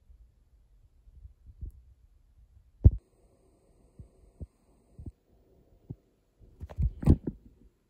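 Irregular dull, low thumps and knocks from a hand-held phone being handled, the loudest about three seconds in and a quick cluster near the end.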